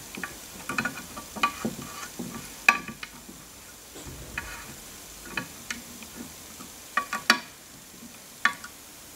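Hex screwdriver tightening the screws that hold a gantry plate to HGH15 linear guide blocks: a scatter of short, sharp metallic clicks and ticks at irregular intervals as the bit seats and turns the screws, the loudest about two and a half seconds in and again near seven seconds.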